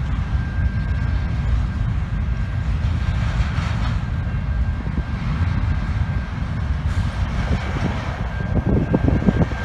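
Double-stack container freight cars rolling past with a steady heavy low rumble and a thin, steady high tone over it. About three-quarters of the way in, quick irregular clacks of wheels on the rails join the rumble.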